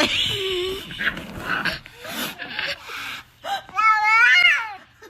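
A cat meowing, with one long, loud, wavering meow near the end.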